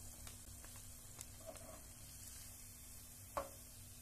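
Hot oil sizzling faintly around a flower-shaped donut deep-frying in a small pan, with a few small ticks and one sharp click of the metal tongs about three and a half seconds in, as the donut is taken out.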